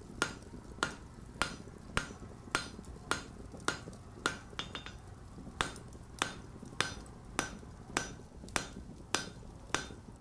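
Blacksmith's hammer striking steel on an anvil in a steady rhythm, a little under two blows a second with a brief pause near the middle, each blow leaving a short metallic ring. A steady low rumble runs underneath.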